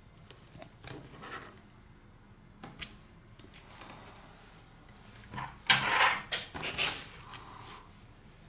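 Rustling and rubbing of plastic film and adhesive tape handled by fingers along a tablet's frame, in short irregular bursts, the loudest about five and a half to seven seconds in.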